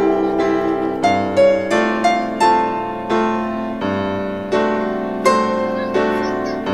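Solo piano background music: a melody of notes struck about every half second over held chords, each note ringing and then dying away.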